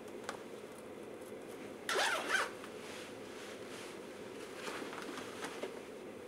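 Jacket zipper pulled closed in one quick zip about two seconds in. Fainter rustles and small taps follow, over a steady low room hum.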